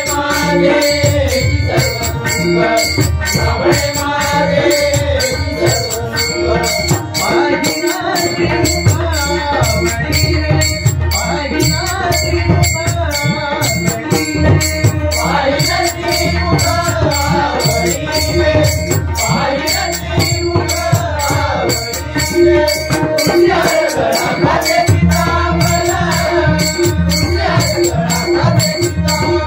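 Bhajan ensemble playing an instrumental passage: pakhawaj and tabla drumming under a wavering melody, with a steady rhythmic jingle of small hand cymbals.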